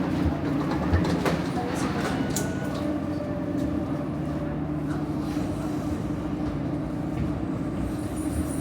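Steady low drone of machinery heard from inside a moving vehicle, holding a few steady low tones, with a few light knocks and clicks.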